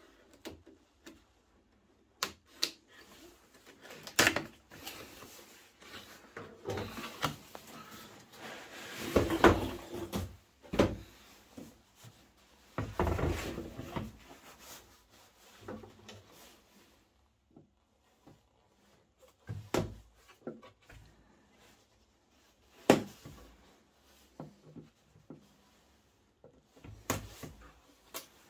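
Cardboard box being slit open with a knife and unpacked: scattered knocks and clicks, with a couple of longer scraping, rustling stretches in the middle.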